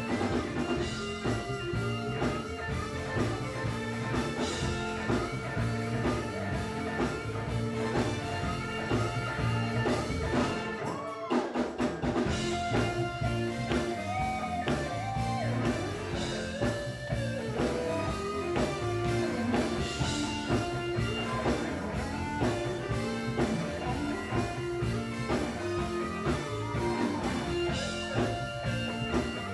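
Live gospel band music: electric guitar playing over drums and bass.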